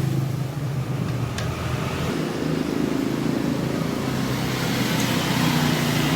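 Honda Vario Techno 110 scooter's single-cylinder four-stroke engine running steadily after the restoration.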